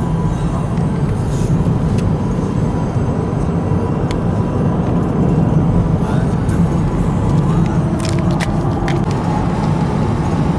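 Car driving, heard from inside the cabin: a steady low road and engine rumble, with a few sharp clicks about eight to nine seconds in.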